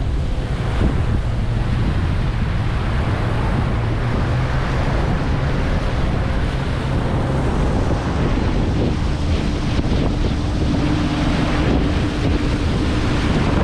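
Wind buffeting the microphone, a steady low rumble over the sound of open water. About nine seconds in, a faint steady hum joins it.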